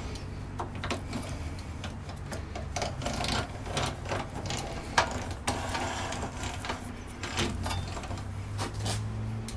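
Mini lathe carriage being cranked along the bed by its rack-and-pinion handwheel: irregular metallic clicks and light rattling from the gear and slides, over a low steady hum.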